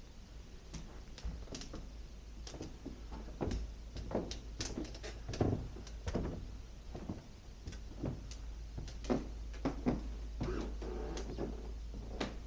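Irregular soft knocks and clicks from handling and moving the camera while walking, over a steady low hum.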